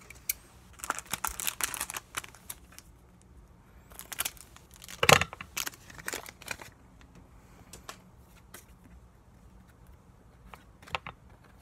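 Pokémon trading cards being handled: scattered sharp clicks and crinkly rustles, in clusters in the first half with the loudest burst about five seconds in, then only a few faint clicks.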